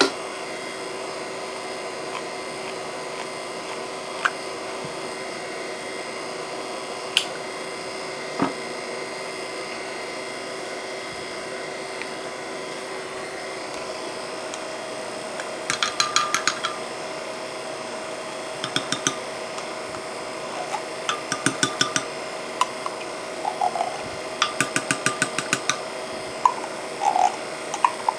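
A few lone clicks over a steady hum, then from about halfway, runs of rapid clicking and scraping as a metal spoon scrapes tomato paste out of a small tin can into a glass measuring cup, with a couple of short squeaks near the end.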